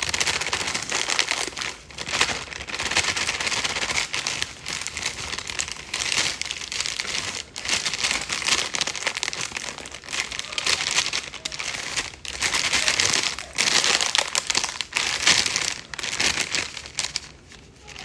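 Brownie-mix packet crinkling in the hand as the dry mix is poured out into a bowl, in uneven stretches with short pauses.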